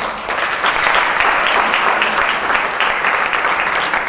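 Audience applause in a hall: many people clapping together, building quickly in the first second and then holding steady.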